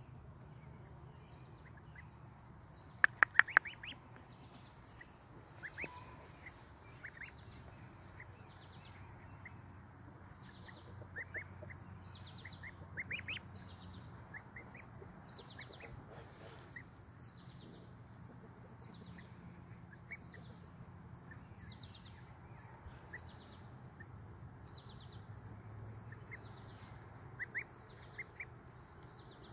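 Ten-day-old goslings peeping: scattered short, rising high peeps, a few of them bunched together near the middle and again near the end. A quick run of four sharp clicks comes about three seconds in, and a steady high chirp repeats about twice a second in the background.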